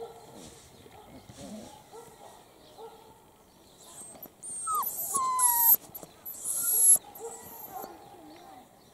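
Italian greyhound puppies whimpering softly, in short repeated whines. About halfway through come a couple of short, sharp yelps and a louder high hiss lasting about two seconds.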